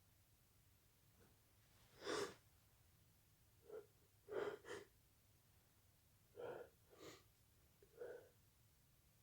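A run of muffled, stifled sneezes, several short bursts over about six seconds with quick intakes of breath between them.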